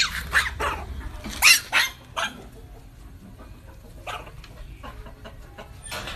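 A dog barking in a quick run of sharp barks over about the first two seconds, then falling quieter with only a few faint sounds.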